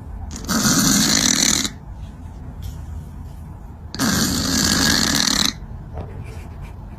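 Two long, raspy snores, each lasting over a second, about three seconds apart.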